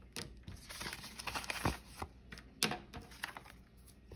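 Paper banknotes rustling and a laminated cash envelope being handled as the bills are slipped into it: faint, irregular crinkles and light taps, with a couple of sharper taps around the middle.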